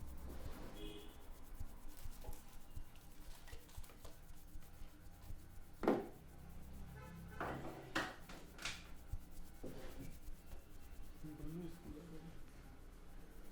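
Hands rubbing and working a scalp through the hair in a barber's head massage, a continuous rustling with scattered crackles. A few louder sharp clicks stand out, the loudest about six seconds in and again around eight seconds.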